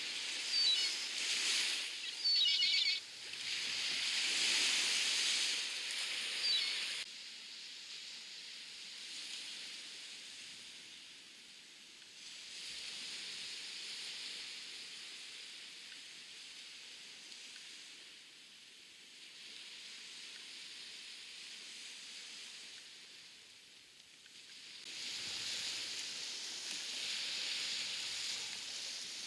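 Small waves washing onto a sandy beach: a steady hiss of surf, louder at first and again near the end. A few short, high chirping bird calls come in the first few seconds.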